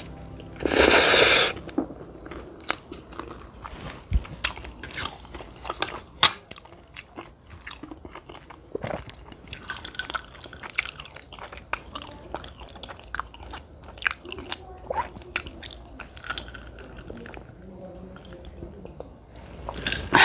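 Close-miked chewing and mouth sounds of a person eating cheesy spaghetti with meatballs, with many small wet clicks and bites. A short, loud rushing noise about a second in.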